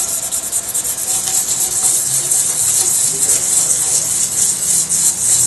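Cured epoxy resin on a ceramic tile being hand-sanded with a small piece of sandpaper in quick back-and-forth strokes, a steady scratchy hiss. The sanding roughens the resin so acrylic paint will grip it.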